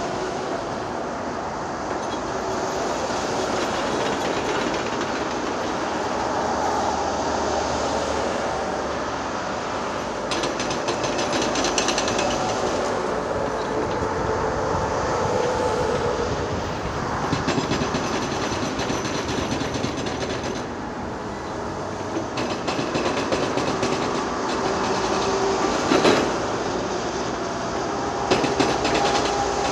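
Excavator at work: its diesel engine running steadily under load, with stretches of fast metallic rattling and clattering and one sharp clank near the end.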